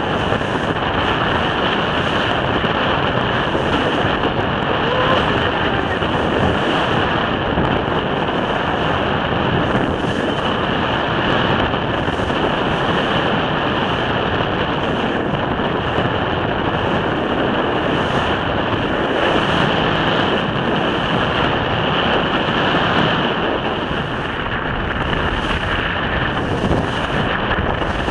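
Steady wind noise on the microphone over the wash of waves, with a boat moving through a rough, choppy sea.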